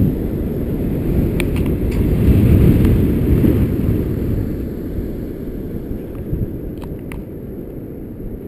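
Strong wind buffeting the camera microphone: a low, gusty rumble that swells a couple of seconds in and eases off toward the end, with a few faint clicks.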